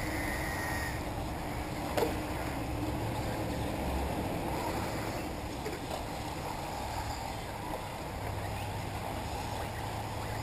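Outdoor track noise: a steady low rumble of wind on the microphone with the faint running of 1/8-scale electric off-road RC buggies racing, and a brief whine near the start. A single sharp knock comes about two seconds in.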